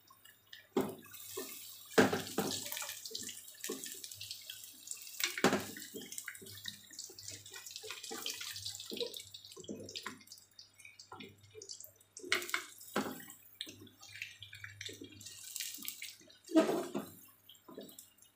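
Battered tempeh sizzling and crackling in hot oil in a wok. A wooden spatula knocks and scrapes against the pan now and then as the pieces are turned, the loudest knocks about 2, 5 and 16 seconds in.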